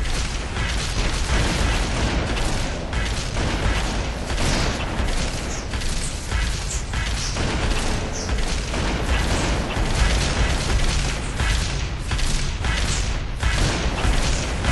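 Sustained gunfire in a firefight, shots packed close together with repeated heavy booms.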